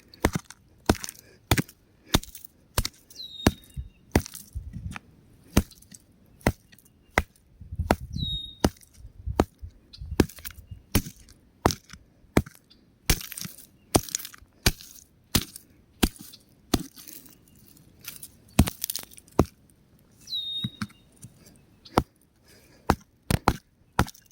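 Rock cracking and crumbling: an irregular run of sharp cracks and snaps, one to three a second, with a couple of short crumbling stretches in between.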